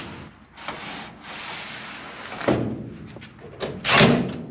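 Sheet-metal evaporator coil being slid into an air handler cabinet: metal scraping along the rails, a thunk about two and a half seconds in, and a louder metal knock near the end.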